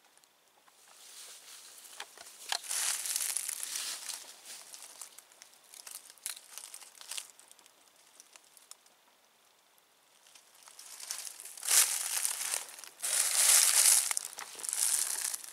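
Dry leaves and twigs crunching and crackling in two bouts, one starting about a second in and a louder one about ten seconds in, with sharp snaps among the rustle.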